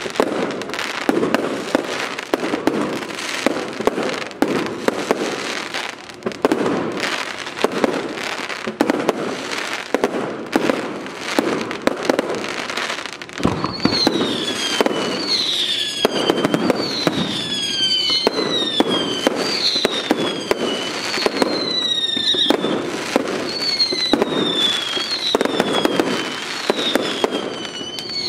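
Fireworks display: a rapid string of bangs and crackling shell bursts. From about halfway, a run of high whistling fireworks joins in, roughly one a second, each whistle falling in pitch, while the bangs continue.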